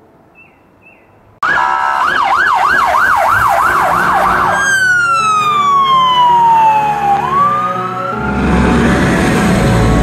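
An electronic emergency-vehicle siren cuts in suddenly about a second and a half in, yelping quickly up and down about three times a second, then switching to a long falling wail that starts to rise again, over background music. A low rumble comes in near the end.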